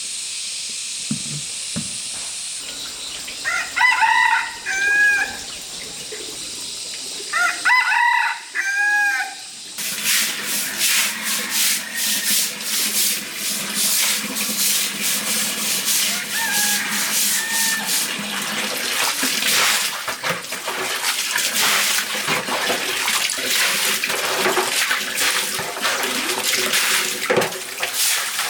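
A rooster crowing twice, about four seconds apart, over a steady hiss. From about ten seconds in, a continuous scratchy rubbing and scraping sound takes over.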